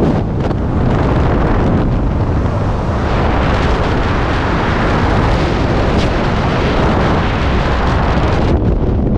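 Loud freefall wind rushing and buffeting over the skydiver's camera microphone, a dense roar with no tones in it. Near the end the high hiss drops away suddenly as the parachute deploys and slows the fall.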